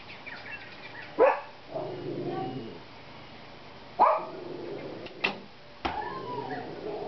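A dog barks twice, loud and short, about a second in and again about four seconds in. Near the end come two sharp cracks about half a second apart as the recurve bow is shot.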